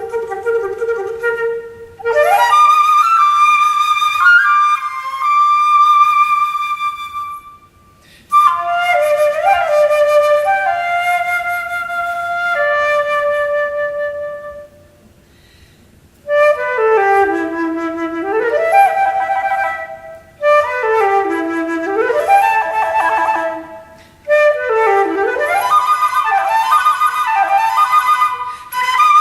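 Solo flute playing unaccompanied: held notes with vibrato at first, then a series of rapid runs that swoop down and climb back up, in phrases broken by short rests.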